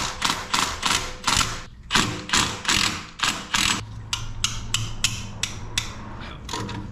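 Hand ratchet clicking in quick back-and-forth strokes as it backs off the 15 mm nuts holding the turbo to the exhaust manifold. The strokes come about three a second, then turn faster and lighter from about four seconds in.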